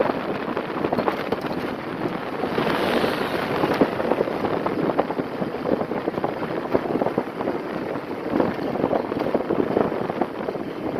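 Wind buffeting a phone's microphone: a steady rough rustle broken by crackling gusts.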